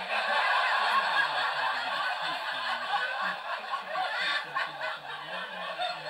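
Sustained snickering laughter that goes on for about seven seconds and then cuts off.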